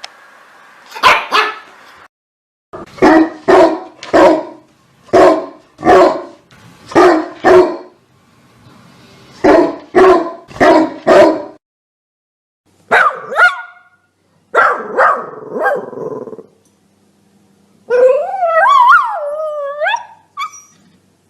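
Dogs barking: short, sharp barks in pairs and threes, coming in separate clips that cut off abruptly. Near the end, a dog gives a wavering, howl-like call lasting a couple of seconds.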